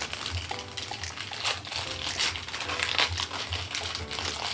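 A small crinkly wrapper on a blind-bag toy piece being unwrapped by hand, crinkling and crumpling in quick irregular bursts.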